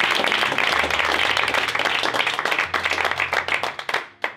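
Audience applauding, the clapping thinning out into a few last claps near the end.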